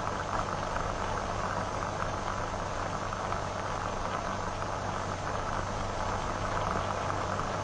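Steady hiss with a low hum underneath: the background noise of an old film soundtrack, with no distinct sound events.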